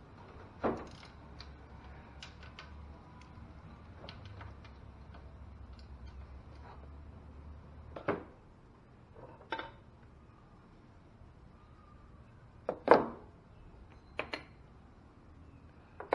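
Scattered metal clicks, clinks and knocks from a socket wrench taking the four bolts off a GY6 150cc scooter's valve cover and lifting the cover off. The loudest knock comes about thirteen seconds in.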